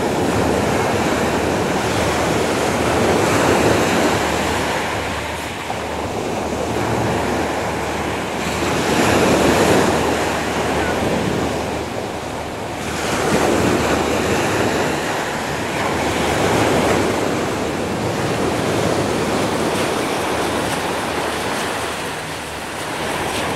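Small surf breaking and washing up a gravelly beach: a steady hiss that swells and fades as each wave comes in, with the biggest surges a few seconds apart.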